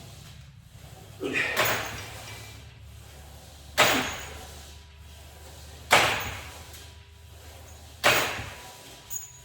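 Cable crunch reps on a weighted cable machine: four sharp sounds, each fading over about half a second, one every two seconds, one per rep, over a steady low hum.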